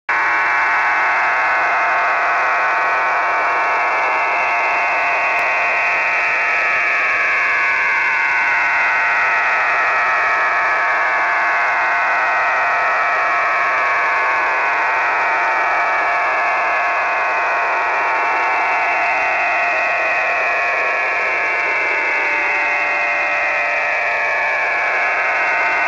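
Radio receiver audio: steady hiss in a narrow voice-band passband, crossed every few seconds by overlapping whistling tones that glide slowly downward, an unidentified strange signal. A steady low whistle joins in near the end.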